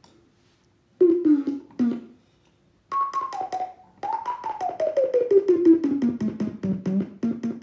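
A single pure, whistle-like tone in three phrases: a short falling note about a second in, a higher note stepping down at about three seconds, then a long slow slide from high to low pitch. A fast flutter pulses through it several times a second.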